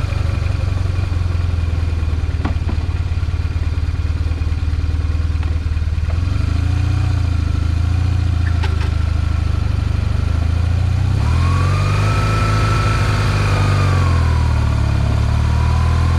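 BMW boxer-twin motorcycle engine running at a steady idle. About eleven seconds in the engine note rises and falls, together with a higher whine.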